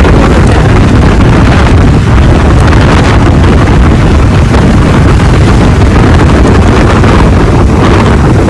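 Heavy wind buffeting the microphone of a motorcycle riding at about 50 km/h, with engine and road noise underneath; loud and steady.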